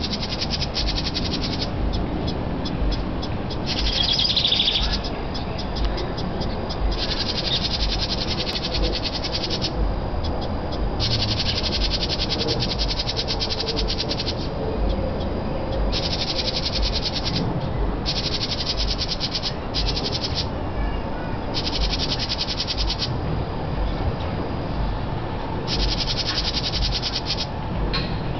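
House wrens scolding with a harsh, very rapid chatter in repeated bouts of a second or two: their alarm call at a person standing close to the nest box holding their nestlings. A steady low rumble runs underneath.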